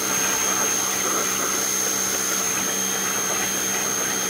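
Ryobi 2000 PSI electric pressure washer running steadily, its water jet spraying against vinyl siding: an even motor-and-pump drone with a steady hum and a thin high-pitched whine over the hiss of the spray.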